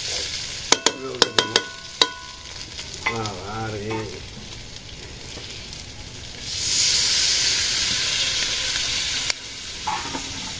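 A metal spatula strikes the rim of a karahi several times with sharp ringing knocks. Then liquid is poured into the hot, fried-down curry base and sizzles loudly for about three seconds before cutting off. This marks the end of the masala sauté, as the gravy is added.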